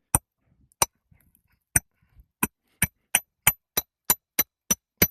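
A hammer striking the metal striking block of a roof snake about a dozen times, each blow a sharp metallic clink, driving the hook to pull a roofing nail out from under a shingle. The blows start about a second apart and speed up to about three a second.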